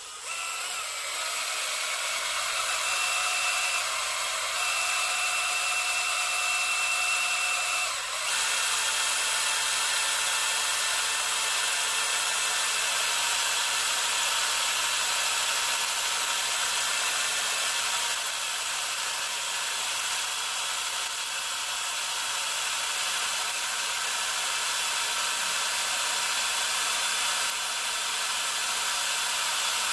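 Cordless drill running steadily as its bit bores a hole into a cast-iron Gen 3 LS engine block through a drill guide plate, with a brief dip about eight seconds in.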